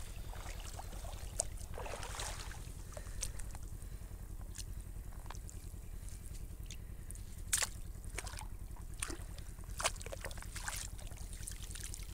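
A hand sloshing in shallow floodwater as it pulls clumps of aquatic weeds up out of a flooded rice field, with water splashing and dripping and a few sharp clicks of handling, two of them loud near the end. A steady low hum runs underneath.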